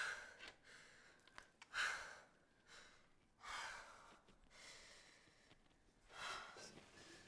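A person breathing slowly and audibly: about four heavy breaths, roughly every two seconds, with fainter ones between.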